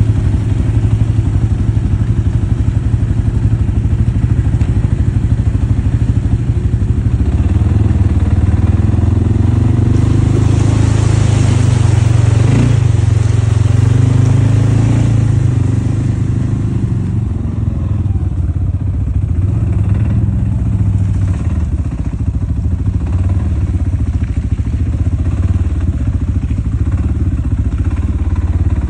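ATV engine running as the quad rides along a muddy dirt track, its pitch rising and falling as the throttle is opened and eased.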